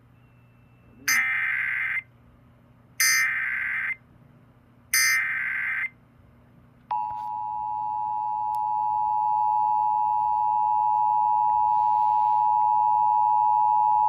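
Emergency Alert System activation heard through a small Sangean HD radio's speaker: three harsh one-second bursts of digital header data a second apart, then, about seven seconds in, the steady two-tone attention signal (853 and 960 Hz) starts and holds. It opens a Child Abduction Emergency (Amber alert).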